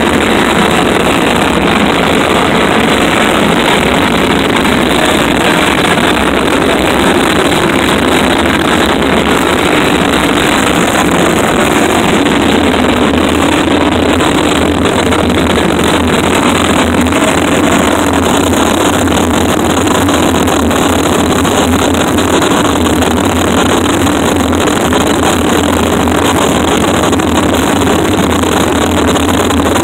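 Harsh noise music played live on electronics through PA speakers: a loud, steady wall of distorted noise with a low rumble beneath it, barely changing.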